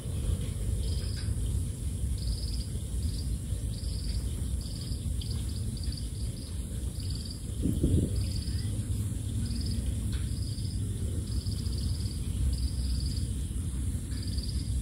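Repeated short, high, pulsed chirps, about twenty of them at uneven intervals, from a small animal in the field, over a steady low rumble. A brief low thump comes about eight seconds in.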